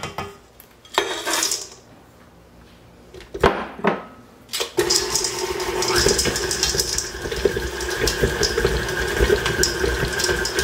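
KitchenAid tilt-head stand mixer starts about five seconds in and runs steadily, its paddle beating chocolate chips into a stiff peanut butter cookie dough. Before it starts there are a few brief clunks and scrapes at the bowl.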